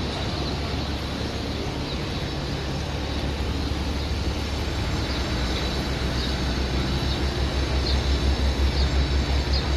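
Steady outdoor rumble and hiss, with a low buffeting that grows louder through the second half. A few faint, short, high chirps of small birds.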